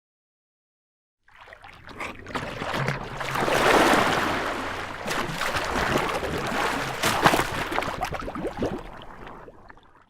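Water sloshing and splashing with scattered sharp splashes, starting about a second in, swelling, then fading out near the end.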